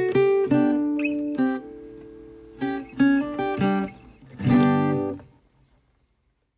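Background music on acoustic guitar: strummed chords, ending on a last chord about four and a half seconds in that rings out and fades away.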